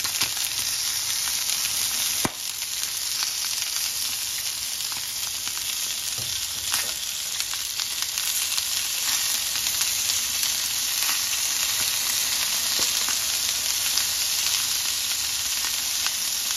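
Chicken pieces frying in oil in a pan: a steady sizzle with a few small pops.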